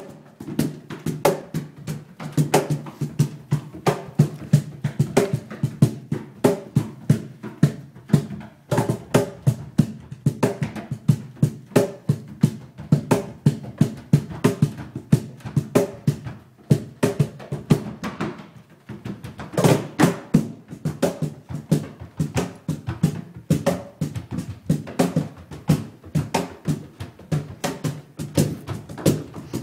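Tap shoes striking the floor in fast rhythms, traded and layered with a live drum kit in an improvised tap-and-drum jam. Dense, sharp hits throughout, with a brief lull about two-thirds of the way through.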